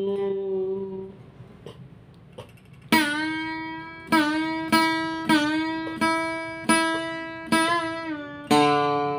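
Solo acoustic guitar playing a cải lương (ca cổ) interlude. A held note rings and fades over the first second, then after a quiet lull single plucked notes follow one another roughly every half second to second, each ringing out, several bending slightly in pitch as they sound.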